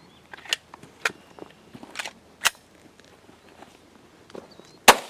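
A 9 mm Gen 4 Glock 17 pistol fired once into the open air about five seconds in, a single sharp shot with a ringing tail, after a few light clicks and knocks of the gun being handled. This is the first of the two function-check shots after the pistol was washed out and reassembled.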